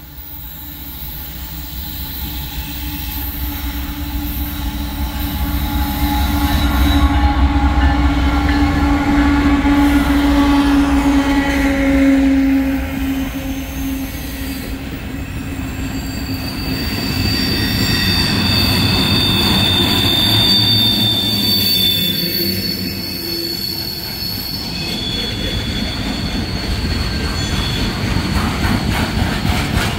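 Norfolk Southern diesel-hauled freight train approaching and passing: the locomotives' rumble swells to its loudest about a third of the way in, then the trash container cars roll by with high-pitched wheel squeal and steady wheel noise on the rails.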